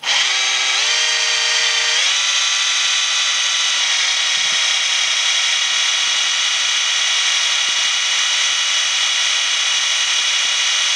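Cordless drill running under load, its motor whine rising in pitch over the first two seconds and then holding steady, as it drills into a short piece of brass plug pin gripped in pliers to make an end nipple for a motorcycle throttle cable.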